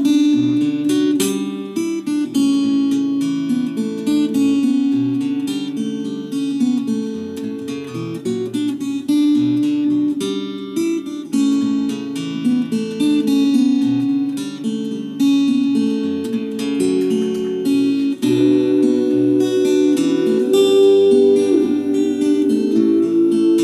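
Acoustic guitar played alone with no voice: a fingerpicked melody over chords, with occasional strums.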